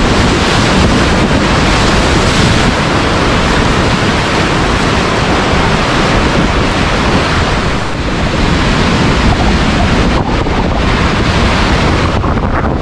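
Loud, steady rush of large whitewater rapids, with water churning and breaking around the tubes of a cataraft.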